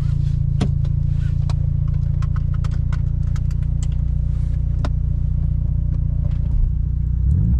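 Mitsubishi Lancer Evolution VIII's turbocharged 4G63 four-cylinder idling with a rough, stumbling note that sounds close to stalling, caused by the closed hood pressing on the intercooler pipe. Scattered clicks and clatter sound over it, and the revs rise briefly near the end.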